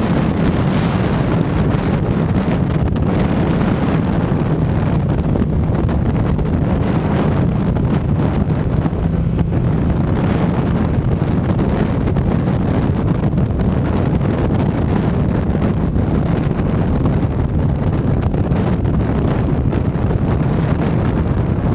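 Heavy wind buffeting on a handlebar-mounted camera's microphone at riding speed. A steady low drone from the Yamaha FZ-07's parallel-twin engine and the tyres runs underneath.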